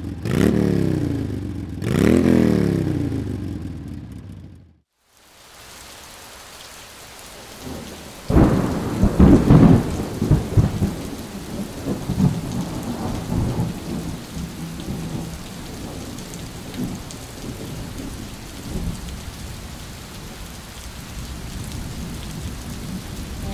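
Two falling whooshes at the start, then, after a short gap, steady rain with a loud roll of thunder about eight seconds in and the rain running on with smaller rumbles.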